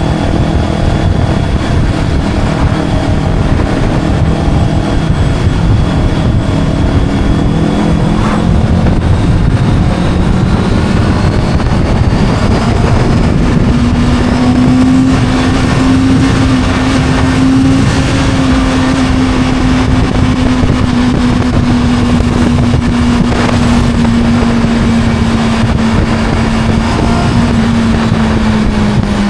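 Motorcycle engine running steadily at road speed under heavy wind rush. Its note climbs gradually through the first half, holds, then eases slowly lower.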